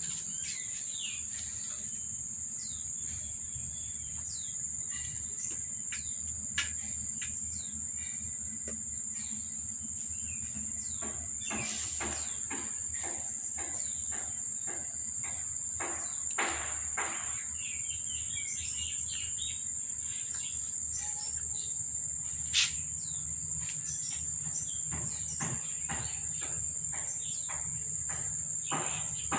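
Insects calling in one steady high-pitched note, with small birds chirping on and off. A single sharp click about two-thirds of the way through.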